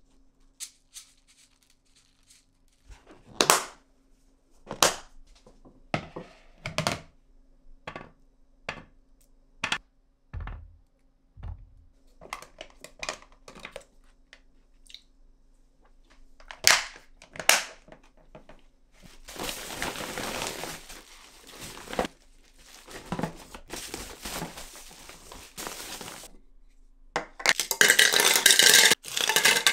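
Household handling sounds: a series of separate knocks and clicks as objects are set down and moved, then longer stretches of crinkling and tearing, the loudest near the end, over a faint steady hum.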